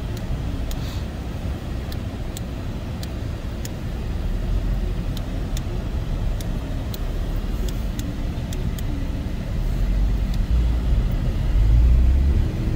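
A Mini Cooper driving slowly on snow, heard from inside the cabin as a steady low rumble of engine and road noise. It grows louder in the last few seconds.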